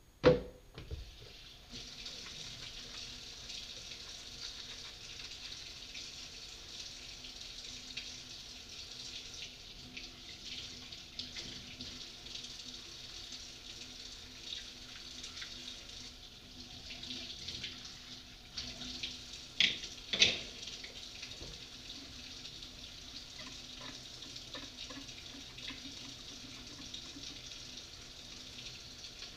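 Kitchen sink faucet running steadily as dishes are washed under it, the flow starting about two seconds in. A sharp clunk comes at the very start, and two more come about two-thirds of the way through.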